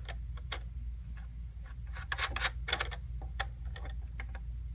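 Irregular light clicks and taps of CPU cooler hardware being handled and fitted, bunched together about two seconds in, over a steady low hum.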